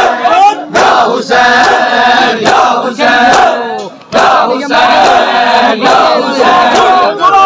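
A large crowd of men chanting together, loud, in short repeated phrases with brief breaks between them and a longer pause about four seconds in.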